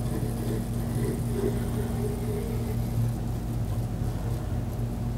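Steady low mechanical hum, one even tone with a fainter higher one above it, unchanging throughout.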